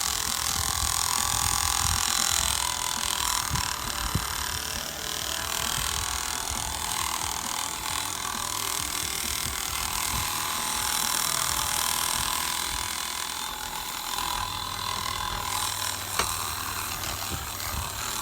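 Oster professional hand-strap massager switched on and running, a steady mechanical buzz that carries on without stopping.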